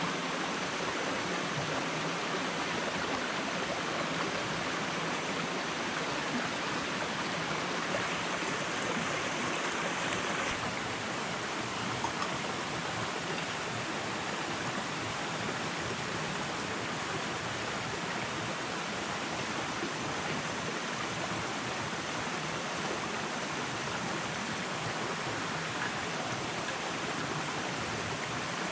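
Shallow forest stream running steadily over rocks.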